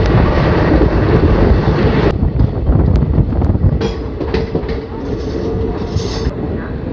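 Goa Express passenger train running on the rails: a loud rumble of wheels on track with clickety-clack over the rail joints and a thin squeal of the wheels. The noise drops suddenly about two seconds in, leaving a steady whining tone, a few sharp clicks, and high squeals about five seconds in.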